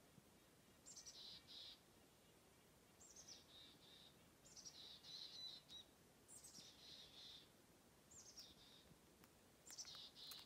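A small songbird singing the same short phrase six times, each a quick falling sweep into a brief trill, every one and a half to two seconds, faint over quiet open-country background.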